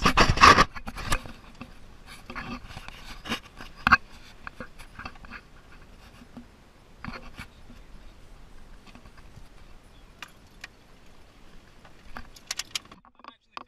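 Handling noise from a camera moved about inside a pickup truck's cab: scattered clicks, rattles and scrapes, with one sharp click about four seconds in.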